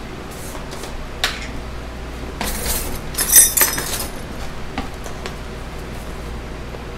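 Metal kitchen utensils and containers clinking and clattering as they are handled: a sharp clink about a second in, a louder clatter around three seconds in, then a few light clicks.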